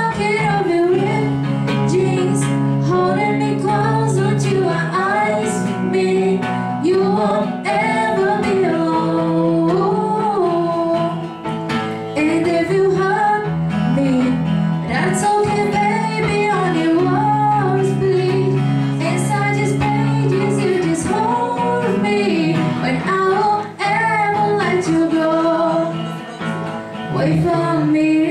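Live acoustic guitar strummed under a woman singing into a microphone.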